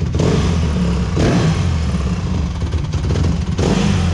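A 2008 Honda CRF150R's single-cylinder four-stroke engine running, surging about once a second.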